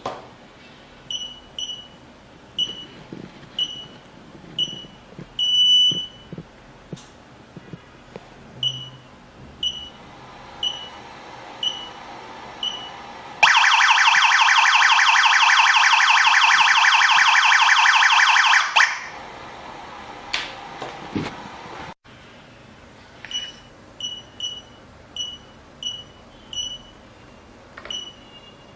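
Touch-screen GSM/PSTN alarm panel beeping steadily, short high beeps about one and a half a second. About thirteen seconds in its siren sounds, a loud rapid warble lasting about five and a half seconds, then stops. The steady beeping resumes near the end.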